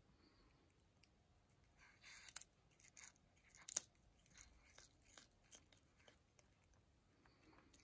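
Cat biting and chewing a dried sprat held in the fingers: a run of sharp, crackly crunches, the loudest about two and a half and four seconds in.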